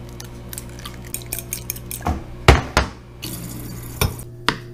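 Kitchen utensils clinking and knocking against dishes: a run of quick light clicks, then a few sharp knocks about two seconds in, the loudest at about two and a half seconds. Near the end a kitchen faucet runs water.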